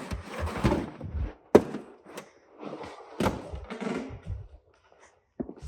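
Trunk carpet of a BMW E60 being pulled loose and handled: rustling and scraping, with a sharp thunk about one and a half seconds in and another just after three seconds.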